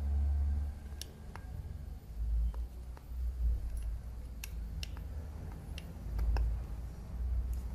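Scattered sharp metal clicks, about ten, as a hand screwdriver turns an orthodontic mini-implant (miniscrew) into the gum, over low rumbling thumps.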